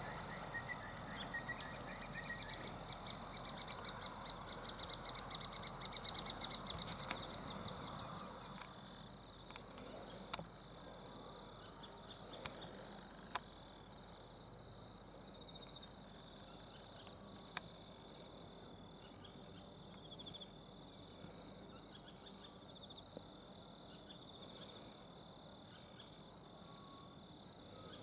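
Wildlife calls: a fast, high-pitched pulsing trill that slowly falls in pitch through the first several seconds, over a steady high-pitched tone. After that the sound is fainter, with scattered soft ticks.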